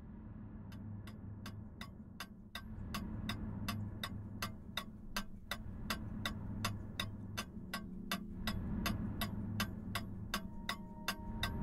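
Steady clock-like ticking, nearly three ticks a second, over a low droning music bed; held musical tones join near the end.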